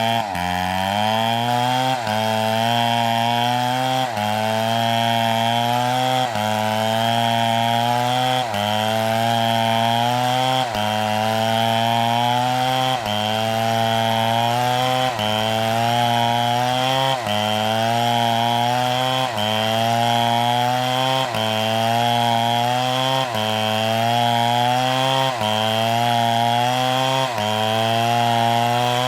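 STIHL chainsaw running hard under load. Its engine note sags briefly and climbs back up in a regular cycle about every two seconds.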